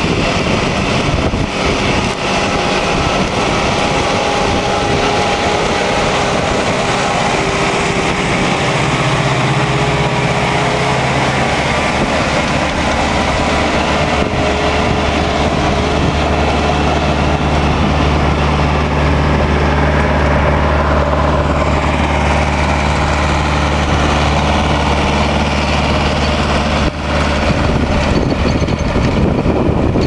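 Zetor Forterra 140 HSX tractor's diesel engine running steadily under load as it pulls a reversible plough through the soil, passing close by. There is a brief break about 27 s in.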